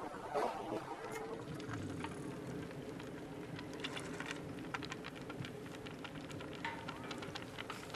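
Faint outdoor ambience with a steady low background, a brief bump about half a second in, and a scattered run of light clicks and crackles from about halfway through.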